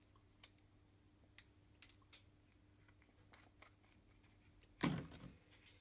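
Small clicks and light taps from acrylic paint tubes and their plastic caps being handled and squeezed over a plastic palette, with a louder knock and a short rustle about five seconds in.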